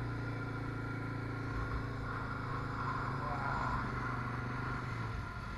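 Can-Am Outlander Max ATV engine running at a steady pace while driving across dune sand. Its even hum changes about five seconds in.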